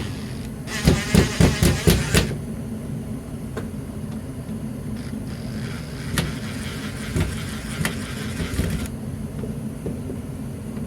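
Cordless drill backing out the screws that hold a fire alarm back box to the wall: a quick series of knocks for about a second and a half, then the drill running steadily for about four seconds, with a few sharp clicks.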